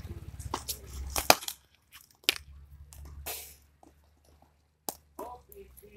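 Several sharp knocks of a cricket ball on hard surfaces, the loudest just over a second in, over a low rumble.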